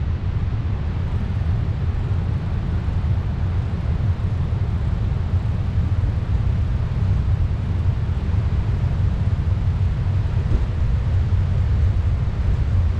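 Wind rushing over a GoPro action camera's microphone on a moving bicycle: a steady low rumble.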